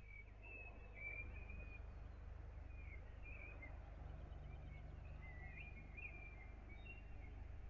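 Faint birds chirping and twittering in short calls over a low, steady background rumble.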